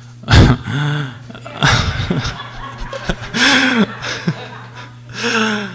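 People laughing and chuckling in several short bursts, the loudest just after the start, over a steady low hum.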